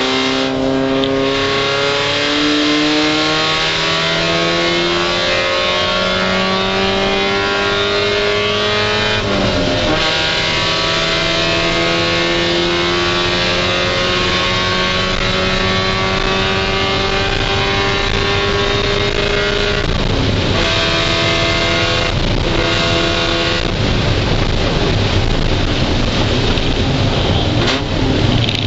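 Spec Miata race car's four-cylinder engine heard from inside the cabin, pulling hard with its pitch climbing slowly. Upshifts come about a third of the way in and again about two-thirds of the way through. Late on, the engine note fades into a rougher, noisier sound.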